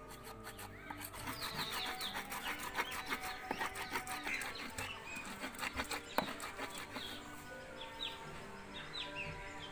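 A hand stone rubbing and scraping spices on a ridged grinding stone (shil-nora) in quick strokes, with one sharp knock about six seconds in, over background music and birds chirping.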